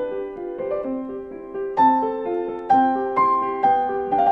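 Background music: a gentle keyboard melody of single piano-like notes struck one after another in a steady pulse, each ringing and fading.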